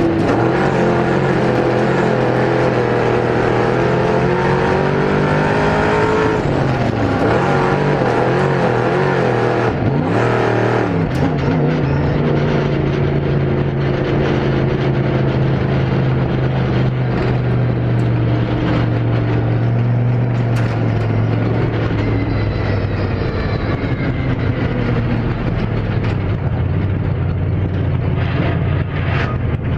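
Engine of a Spec Sportsman dirt race car heard from inside the cockpit, running hard around the track. Its pitch rises and falls through the turns, then holds steady and settles lower near the end, with a few brief knocks along the way.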